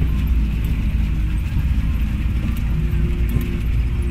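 Vehicle engine running steadily with a low rumble, heard from inside the moving vehicle.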